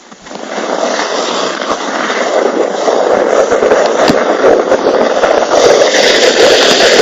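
Plastic hip sled sliding down a snow slope, a steady scraping hiss that grows louder as it picks up speed.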